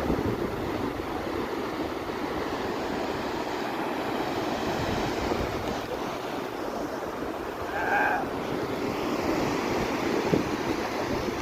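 Sea surf washing onto a sandy beach in a steady rush, with some wind. About eight seconds in, a brief high-pitched tone sounds once.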